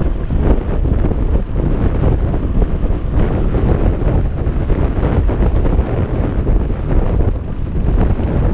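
Wind buffeting a GoPro's microphone as a mountain bike is ridden fast along a dirt trail, a loud gusting rush with the rumble of the tyres on the dirt beneath it.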